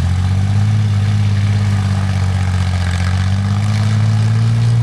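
Tank engine sound effect: a heavy engine idling with a steady low rumble, rising slightly in pitch about halfway through.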